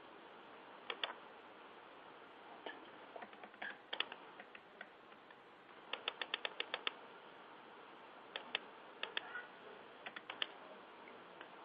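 Computer keyboard typing: scattered clicking keystrokes, with a quick run of about seven near the middle, over a steady faint hiss.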